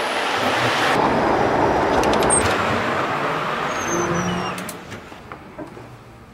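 City street traffic noise: a steady wash of passing cars that falls away about five seconds in, leaving a quieter background with a few faint clicks.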